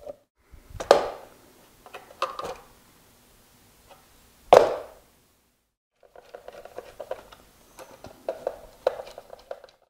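Hand-tool work on a wall fitting: a sharp knock about a second in and a louder knock near the middle, then a run of small scratchy clicks and squeaks as a screwdriver drives screws into a plastic socket box.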